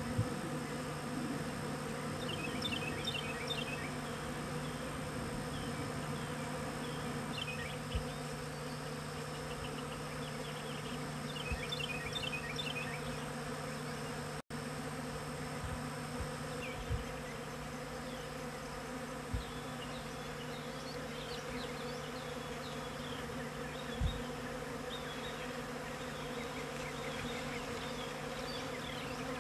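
Honey bees buzzing steadily as they forage for pollen on corn tassels. Runs of short, high chirps come several times over the buzz, along with a few soft low bumps.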